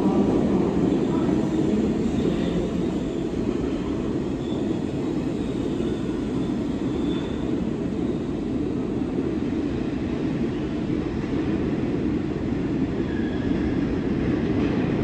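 New York City subway train running past through an underground station, a steady low rumble with faint high squealing in the first half.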